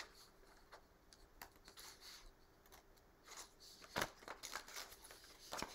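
Scissors cutting through two glued-together layers of paper: a run of faint, short snips mixed with paper rustling, the sharpest snip about four seconds in and another near the end.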